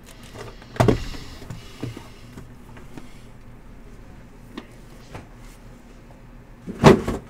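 Shrink-wrapped cardboard hobby boxes pulled from a stack and set down on a table: a thump about a second in, a few lighter knocks, and a louder thump near the end.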